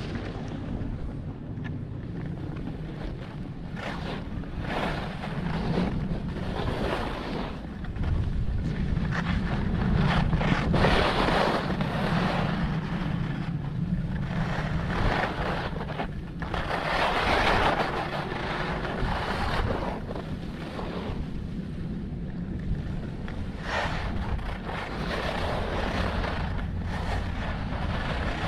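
Wind buffeting the microphone of a downhill skier's camera, with surges of hissing scrape as the skis carve turns on the snow, the loudest a little past a third of the way in and again past the middle.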